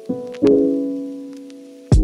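Background piano music: a chord is struck and left to ring, fading slowly, and a new note is struck sharply near the end.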